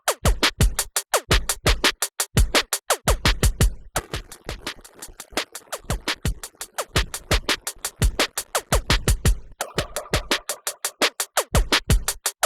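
Electronic lofi track with a busy drum-machine beat: rapid sharp clicks over deep kicks that drop in pitch, with a held synth note coming in near the end.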